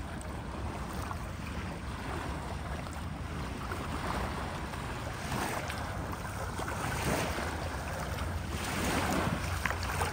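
Lake Superior waves washing on the shore, the wash swelling and easing every few seconds, with a steady low rumble of wind on the microphone.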